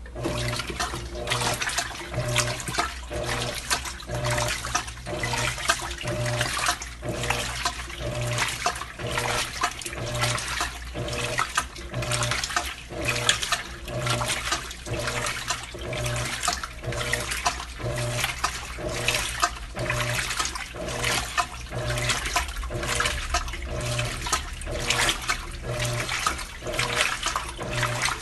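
Electrolux LAC12 washing machine in its rinse cycle: water churning and sloshing around the clothes, with a low pulse about once a second as the wash action reverses back and forth.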